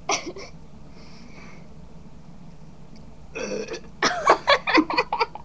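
A person burps, with the gas brought up by drinking Diet Coke: a short sound right at the start, a half-second burp about three and a half seconds in, then about a second of rapid short vocal sounds.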